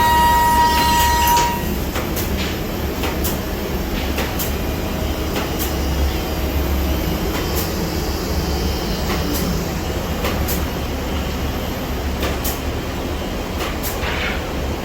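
Biesse Rover A Smart 5-axis CNC router running: a high steady whine stops about a second and a half in, then a steady low machine rumble with scattered clicks and ticks.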